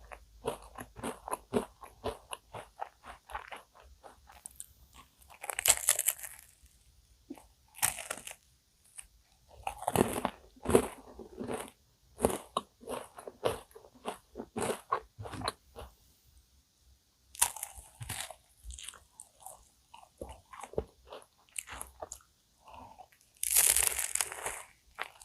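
Close-up chewing and crunching of a cookie choux cream puff, its crisp cookie crust crunching between the teeth in quick runs of chews, with a few louder, longer crunches.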